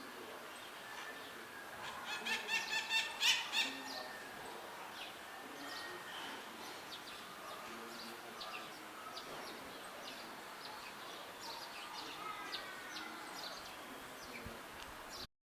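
Maritacas calling: a quick run of loud, repeated screeching calls about two seconds in, then scattered fainter chirps and calls, with another short series near the end.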